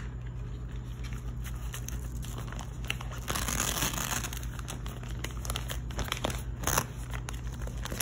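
Fabric blood pressure cuff rustling as it is lined up and wrapped around an upper arm, with scattered small clicks, a scratchy rasp of about a second a little past three seconds in, and a brief louder one near seven seconds in.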